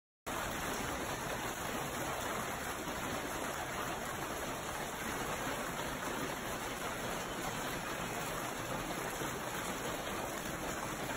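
Hailstorm: a dense, steady hiss of hail and rain coming down hard, cutting in a moment after the start.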